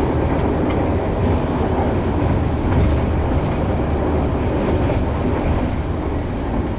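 Steady low rumble of a moving passenger train heard from inside the carriage, wheels running on the rails, with faint light clicks and rattles over it.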